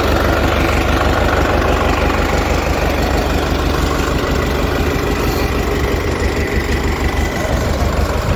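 Farmtrac 6055 tractor's diesel engine idling steadily, close by.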